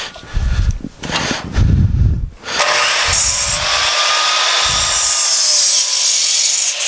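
A few low knocks as a board is handled at the saw, then from about two and a half seconds in an electric miter saw (chop saw) runs and cuts through a Western red cedar 2x6. The cut is a steady loud whir lasting about four seconds and dies away near the end.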